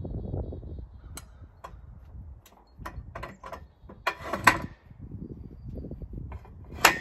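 Knocks and clanks from a heavy white pine cant being shifted on the steel bed of a bandsaw mill: scattered light taps, a louder rattling clatter about four and a half seconds in, and a sharp metallic clank with a brief ring near the end.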